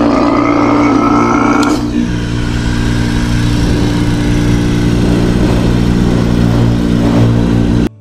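Electric refrigerant vacuum pump running as it pulls a vacuum on a car's air-conditioning system for a leak check. It is louder and rougher for the first couple of seconds, then settles into a steady hum, and cuts off suddenly near the end.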